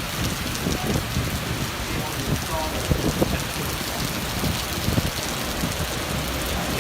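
Heavy rain beating steadily on a surface, with scattered louder knocks mixed in.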